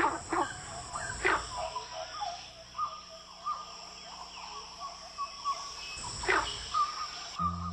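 Steady high-pitched insect chorus with animal calls over it. Sharp calls slide down in pitch about a second in and again near six seconds, with short repeated notes in between. Music begins right at the end.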